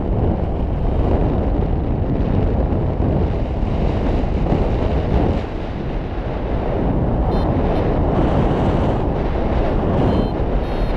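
Wind rushing over the microphone of a paraglider's onboard camera in flight: a loud, steady low rumble with a brief slight dip about halfway through.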